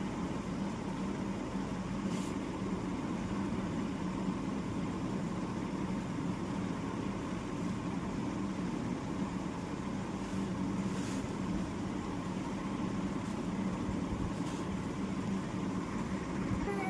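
Steady low hum and rumble of background noise, with a few faint ticks.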